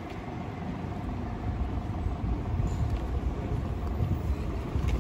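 Steady road-traffic noise of a busy street: a continuous low rumble of passing vehicles.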